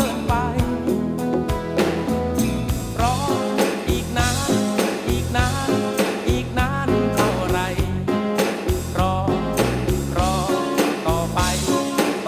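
A band playing a Thai song, with a lead singer singing over a steady beat.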